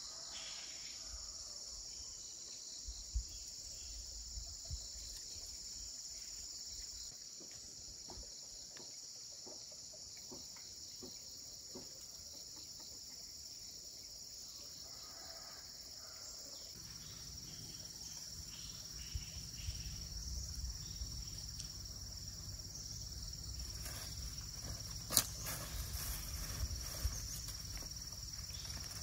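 Steady high-pitched chirring of crickets, with scattered small knocks and rustles from hands working soil and seedlings. A low rumble joins about halfway through.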